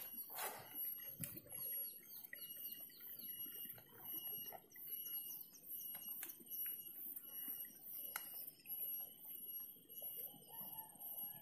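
Quiet outdoor ambience: faint, short bird chirps repeated in quick runs over a steady high-pitched whine, with a few soft clicks.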